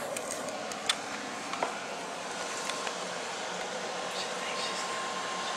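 Handling noise on a handheld camera's microphone: two sharp knocks about a second in and a few lighter clicks, over steady hiss.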